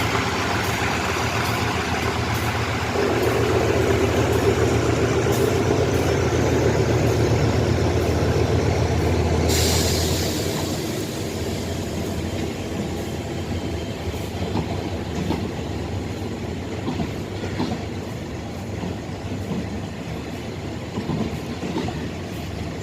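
Diesel train engine running with a deep steady hum that grows louder about three seconds in. A sharp burst of air hiss comes near ten seconds, then the engine sound drops to a quieter rumble with light scattered clicks.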